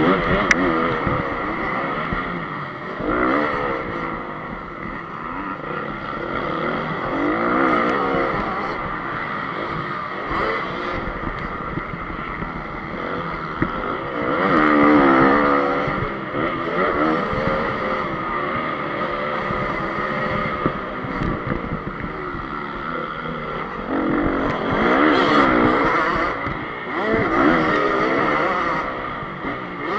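2014 Honda CRF250's single-cylinder four-stroke engine, heard close up from on board, revving hard under race riding, its pitch rising and falling continuously, with several louder surges.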